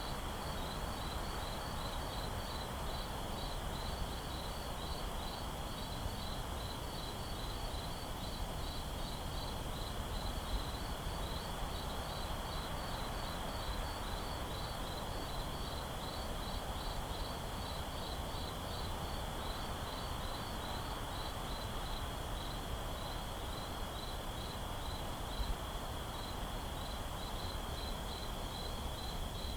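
Night ambience of crickets: an even, repeating chirp of a few pulses a second over a continuous high insect trill, with a soft, steady hiss underneath.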